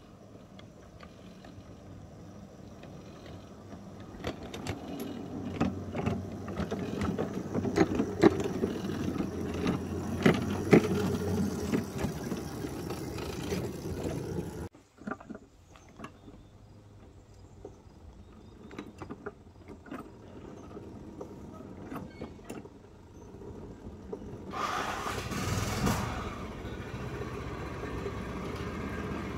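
Miniature ride-on train running on its track: the wheels click over the rail joints and the cars rattle over a low steady hum, the clatter growing louder through the first half. It cuts off suddenly about halfway, carries on more quietly with scattered clicks, and a brief louder rush of noise comes near the end.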